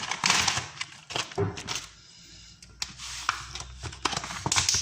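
Handling noise from food containers and plates: irregular clicks and knocks with short bursts of rustling.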